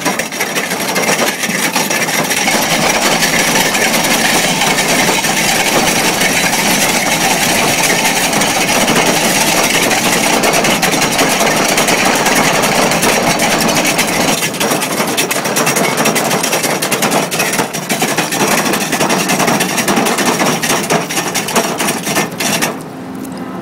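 Excavator drum cutter's rotating pick-studded head grinding into hard rock: a loud, steady rasping with rapid crackling of the picks chipping the rock. It drops to a lower level near the end.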